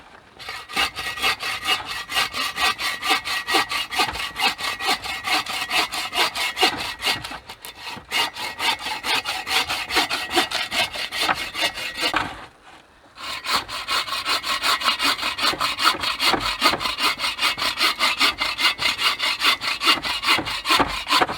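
Hand saw cutting through a hardwood firewood log with quick, even back-and-forth strokes. It stops briefly about twelve seconds in, then starts again.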